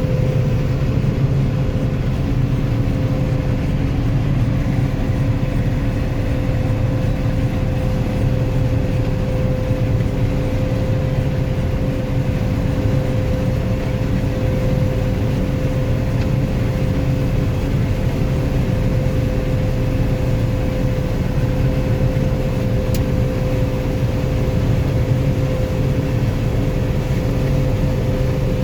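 Combine harvester running steadily while cutting soybeans: an even machinery drone with a constant whine through it.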